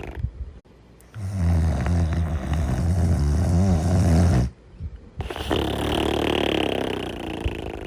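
A sleeper snoring: a long, low, rattling snore of about three seconds starting about a second in, then after a short pause a higher, breathier snoring breath.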